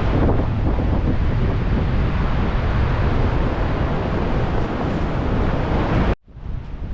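Gale-force wind buffeting the microphone over ocean surf, a loud, rumbling rush. About six seconds in the sound cuts out abruptly, then fades back in.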